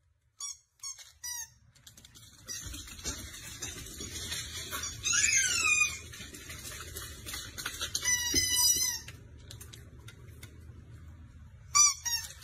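Dogs giving high-pitched squeaky yips and whines: three short yips about half a second in, a run of chirping, squealing calls in the middle over scuffling noise, and a sharp pair of loud yips near the end.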